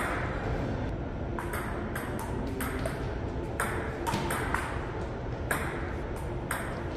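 Table-tennis rally: a celluloid-type ping-pong ball clicking off paddles and the table top, a sharp click roughly every half-second to second, each ringing briefly in a large hard-walled hall.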